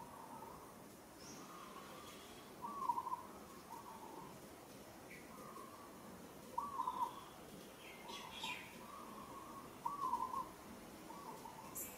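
A bird's cooing call repeated every few seconds: a short note that rises and falls, followed by a flatter one.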